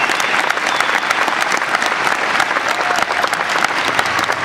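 Large audience applauding, a steady dense clatter of many hands clapping.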